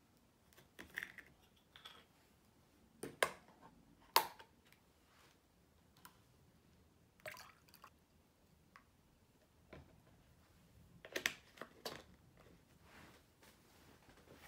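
Scattered soft knocks and clicks of a carton and tableware being handled, with milk poured from a carton into a glass mug of coffee. The loudest knocks come about three and four seconds in, and a quick cluster near the end.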